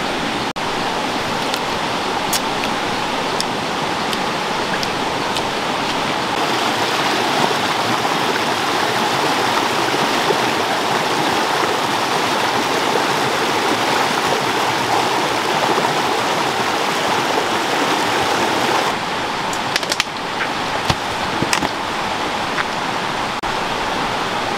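A rocky stream's white water rushing: a steady, full rush of water. A few light clicks come near the end.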